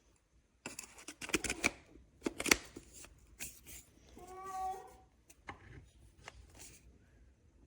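Quick rattling and clicking handling noises, then a cat meows once about four seconds in.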